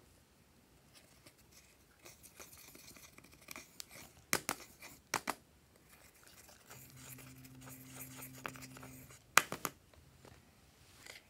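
Plastic tool scraping and digging pressed powder eyeshadow out of a palette pan, a dry scratchy crumbling sound, with a few sharp clicking taps against the palette.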